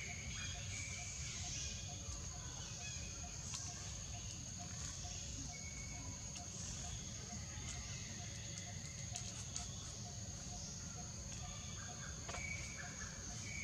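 Outdoor forest ambience: a steady high-pitched insect drone with a faint, evenly repeating pulse and a few short chirps, over a low rumble.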